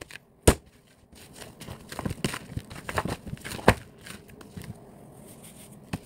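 Sticky dragon fruit bread dough kneaded by hand on a tabletop: a sharp slap about half a second in and another near four seconds, with softer pats and clicks in between as the palm presses and lifts off the dough, which is still sticky and not yet ready.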